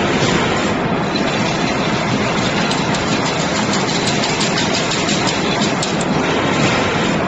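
Double diamond-mesh (chain-link fence) weaving machine running, a steady loud mechanical clatter with frequent light clicks.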